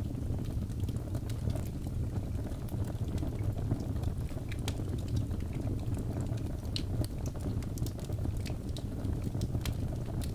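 Wood fire burning in a fireplace: logs crackling with frequent scattered sharp pops and snaps over a steady low rumble of the flames.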